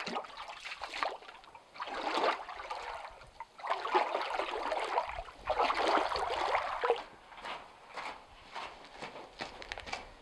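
Footsteps wading through a shallow pool of water, splashing in several loud spells, then fainter scattered steps after about seven seconds.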